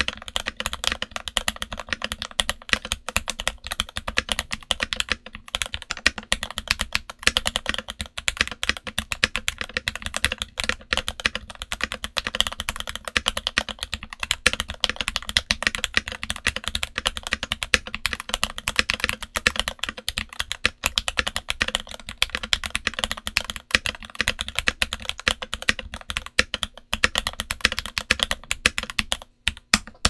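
Redragon K530 mechanical keyboard with Gateron Milky Yellow switches, switch pads, felt and Cherry-profile ABS keycaps, typed on quickly and without pause: a dense run of keystroke clacks that stops just before the end.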